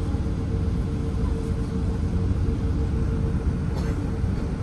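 Airbus A380-842 airliner's steady low rumble, with a thin hum held at one pitch above it.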